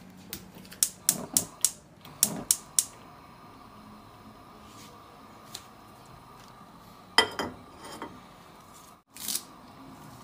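Sharp clicks and clinks of kitchenware, a plate or utensil knocking as ingredients are handled over a clay cooking pot: two quick runs in the first three seconds, then a louder knock with a few more clicks a little after seven seconds and one more near nine seconds.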